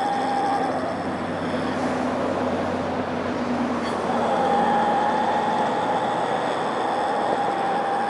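A horse making long, droning snore-like noises, steady drawn-out tones over a rough breathy hiss; one tone fades about a second and a half in and another sets in about four seconds in. The owner suspects snoring in its sleep but is not sure.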